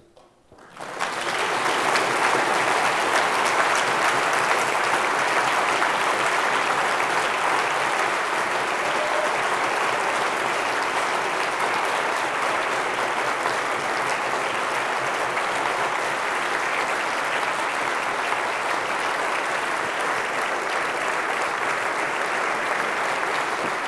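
A large audience applauding, starting about a second in and holding steady throughout.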